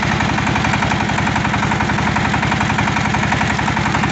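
Tobata (Tramontini) walking micro-tractor's single-cylinder diesel engine running steadily, with a fast, even knock of firing strokes.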